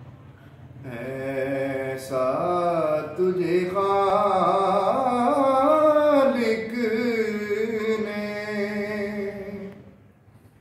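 A man singing a naat, an Islamic devotional poem, solo and without instruments. He sings a long, slow melodic line with held notes that glide and waver. The voice comes in about a second in and stops near the end.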